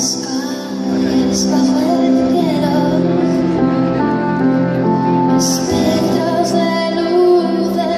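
A woman singing over held chords from a Nord Electro 5 stage keyboard.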